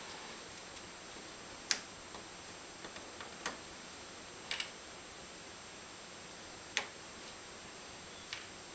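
Scattered light clicks and taps of small hard objects being handled, about six sharp ones a second or more apart, over a faint steady hiss.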